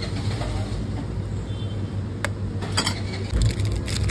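Steady low engine rumble from the street. A few sharp clicks come over it, and near the end a crinkling as a plastic wrapper is peeled off a cheese slice.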